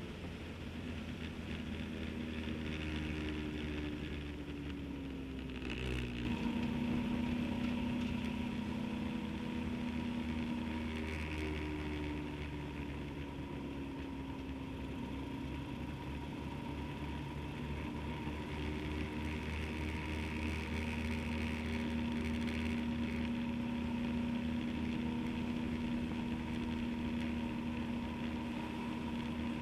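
Motorcycle engine running at road speed, with wind rushing over the microphone. The engine note falls over the first few seconds, then jumps to a higher steady note after a short click about six seconds in, and rises and falls gently after that.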